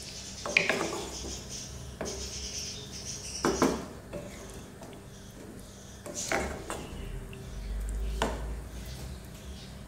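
Wooden spatula stirring thick yogurt-coated chicken in a pot, knocking and scraping against the pot's side about five times.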